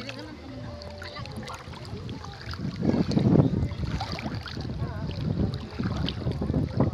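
Shallow seawater sloshing and splashing, with wind rumbling on the microphone; the splashing is loudest about three seconds in.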